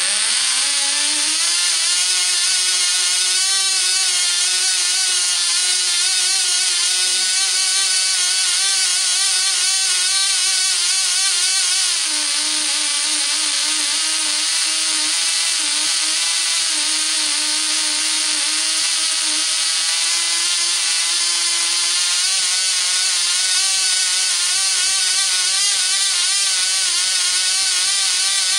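Cox .010 Tee Dee, a tiny two-stroke glow-plug model airplane engine, running flat out with its propeller: a loud, steady, high-pitched buzzing whine. It comes up to speed in the first second. Its pitch drops about twelve seconds in and rises back about ten seconds later.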